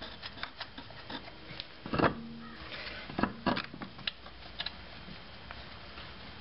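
Lug nuts being threaded by hand onto the wheel studs of a steel wheel with a plastic wheel cover: scattered small metal clicks, with a louder knock about two seconds in and another pair of knocks around three and a half seconds in.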